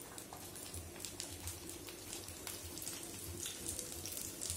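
Parotta frying in oil on an iron tawa: a faint, steady sizzle with many small crackles of popping oil.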